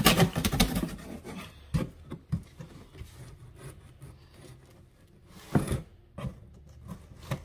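Knife cutting through a cardboard shipping box: a dense rasping cut in the first second, then scattered scrapes and rustles as the box is worked open.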